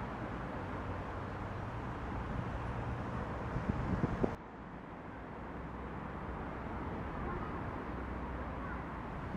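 Steady outdoor background noise with a low hum like distant traffic, and a few light knocks just before it drops abruptly about four seconds in; the hum then resumes at a similar level.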